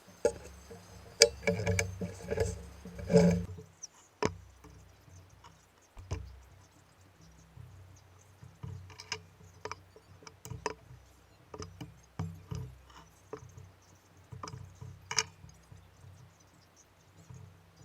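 Scattered clicks, knocks and scrapes of metal parts and tools being handled while the head of a Fobco Star pillar drill is taken apart, busiest and loudest in the first few seconds.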